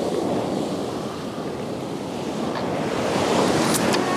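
Surf breaking on a sandy beach, a steady wash of waves that builds slightly towards the end, with wind on the microphone.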